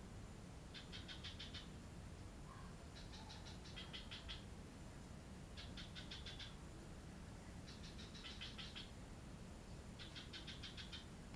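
An animal calling in short, rapidly pulsed trills, each about a second long, five times at even intervals of a little over two seconds, over a faint steady low rumble.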